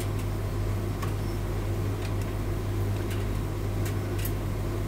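Hotpoint tumble dryer running on high heat: a steady low motor hum with the drum turning, and a few faint ticks.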